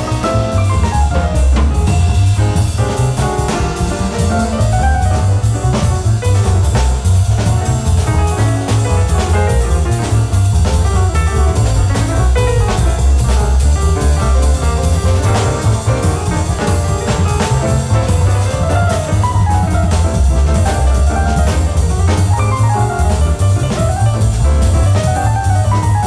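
Live jazz quartet playing at a brisk tempo: drum kit with constant cymbal strokes over a strong double bass line, with piano and melodic lines above.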